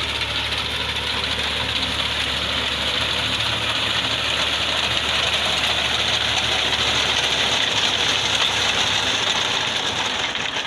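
Fiat tractor's diesel engine running steadily with a front-mounted reaper binder working as it cuts a stand of green fodder. The sound is loud and continuous, with a low hum that drops away about three quarters of the way through.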